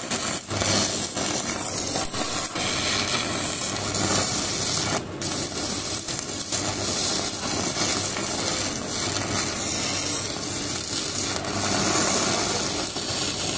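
Stick-welding arc from a Stanley Star-4000 mini DC inverter welder set at about 160 A, burning a 12-gauge electrode: a steady crackling sizzle with spatter, briefly dipping about five seconds in. The rod is melting off smoothly in a stable arc.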